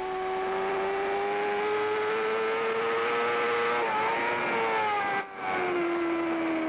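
Onboard sound of a Kawasaki inline-four superbike engine at high revs over wind rush: the note climbs slowly, dips and wavers about four seconds in, cuts out briefly just after five seconds, then settles into a steady, slowly falling note.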